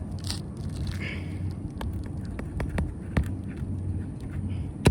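A hammer tapping a roofing nail into an asphalt shingle: a few light, sharp taps through the middle, then one hard strike near the end.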